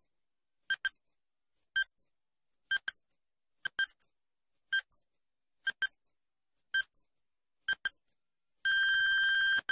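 Countdown timer sound effect: short electronic beeps about once a second, some of them doubled, then a long steady beep about a second long near the end as the time runs out.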